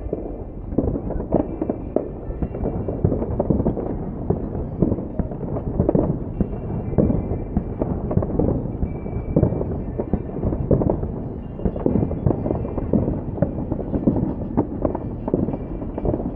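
Fireworks show: a dense, continuous run of booms and crackling bangs, one after another with no break.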